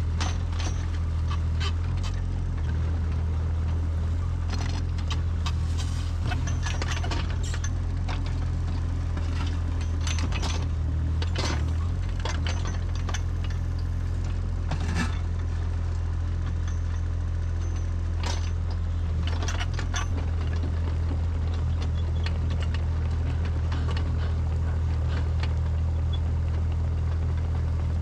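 JCB excavator's diesel engine running steadily under load, with scrapes and knocks as the bucket drags through soil, roots and stones.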